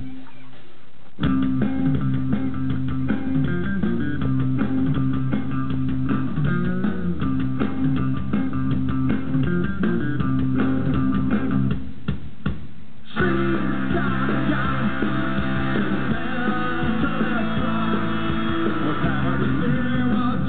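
A live rock band playing, with electric guitars, bass guitar and drums. The band stops briefly in the first second and again about twelve seconds in, then comes back in fuller.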